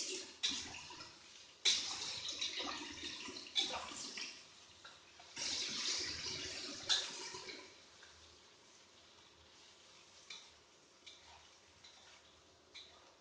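Cubes of potato and tofu shallow-frying in hot oil in a wok: a loud sizzle that surges twice as the pieces are stirred, then drops after about eight seconds to a quieter sizzle. A few light clicks of the spatula against the wok come near the end.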